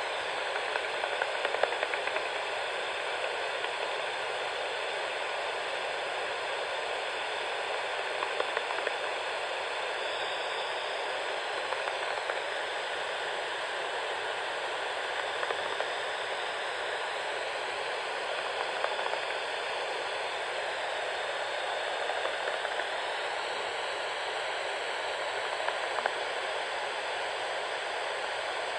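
Bat detector hissing steadily, with scattered clicks and ticks from bats echolocating as they hunt midges.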